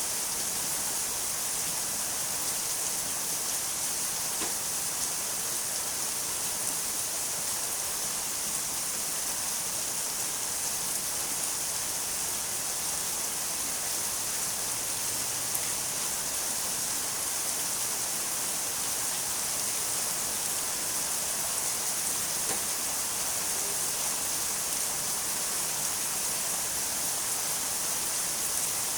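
Steady heavy rain: an even hiss of falling rain, the same throughout with no changes.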